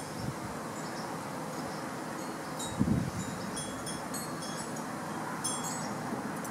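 Metal wind chimes tinkling on and off with short high rings, over a steady background hiss, with a brief low thump about three seconds in.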